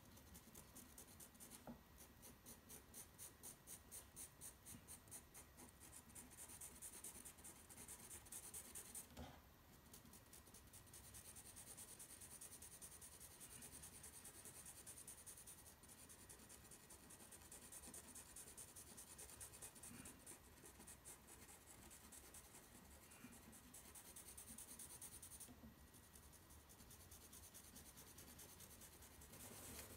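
Colored pencil scratching faintly on toned paper in quick, short, evenly repeated hatching strokes, with a couple of brief pauses.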